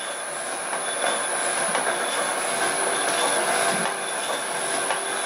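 Home-built can-crusher and copper-cutter machine running steadily on its electric motor at a reduced speed set for crushing cans, while it is being run in. A steady high whine sits over the rough mechanical running noise.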